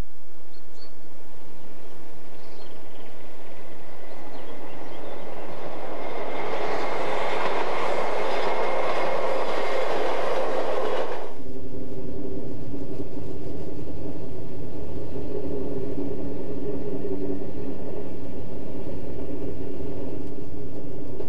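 Electric passenger train running past on the track, its rushing running noise growing louder as it approaches and passes. About eleven seconds in it cuts off abruptly to a steady, even hum of the train running, with several held tones.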